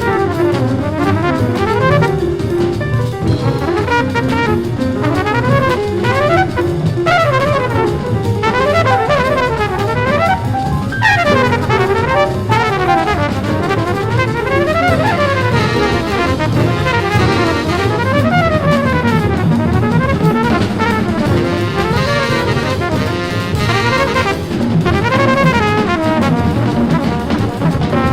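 Fast hard-bop jazz from a vinyl record: a trumpet plays rapid rising and falling runs over drums, piano and bass.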